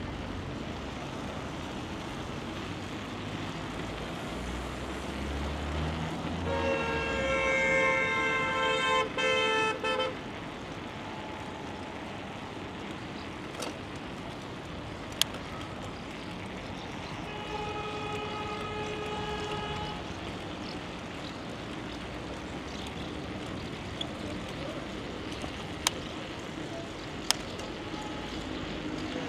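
A vehicle horn sounds in one long blast of about three seconds, with a brief stutter near its end, over a steady background rush. About ten seconds later a fainter, slightly lower horn blast lasts about three seconds, and a few sharp clicks follow near the end.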